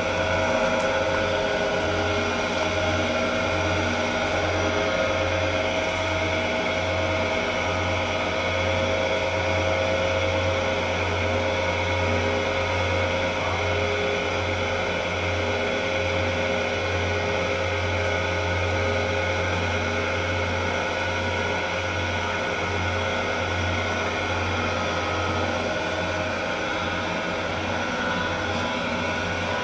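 Electric spiral dough mixer running steadily, a constant motor hum as its hook kneads a large batch of bread dough in the steel bowl.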